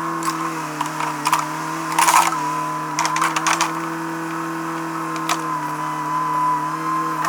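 A machine engine running steadily, with scattered sharp clicks and knocks over it, a dense cluster about two seconds in.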